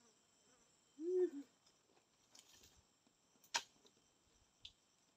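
Faint, steady high insect chirring. A short hummed vocal sound comes about a second in, and a single sharp knock follows past the middle.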